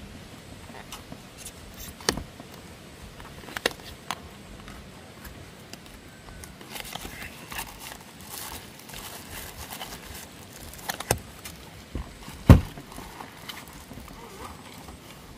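A cardboard box being unpacked by hand: scattered sharp taps and clicks of card, a stretch of crinkling as a thin wrapper is pulled out in the middle, and one louder thump about twelve seconds in.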